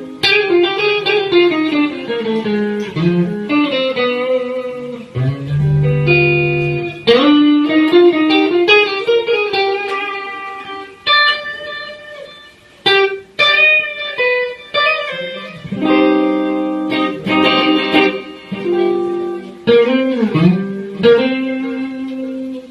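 Fender guitar played as a sound check: melodic single-note runs with some bent notes and a brief break partway through.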